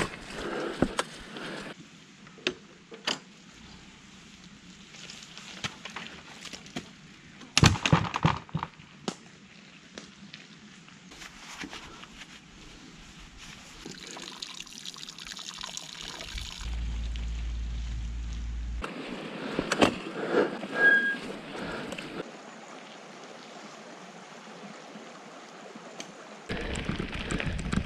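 Mountain bike riding on a wet, muddy trail: tyre noise and splashing through mud, with sharp knocks and rattles from the bike over rough ground, loudest about a third of the way in and again past two thirds. The sound changes abruptly several times, as clips are cut together.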